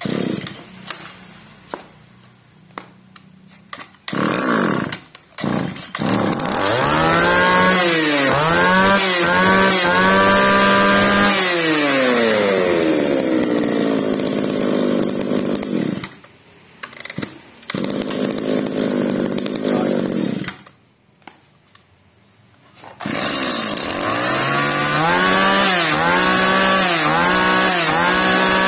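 Small two-stroke brush cutter engine catching after a pull-start, then revved in a series of quick throttle blips and falling back to idle. It cuts out and runs again twice, with a few revs near the end.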